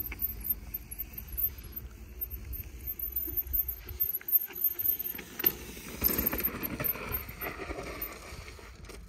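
Mountain bike rolling down a steep sandstone slab, its tyres rolling and crunching over rock and grit, loudest about six seconds in as it passes, with wind rumbling on the microphone.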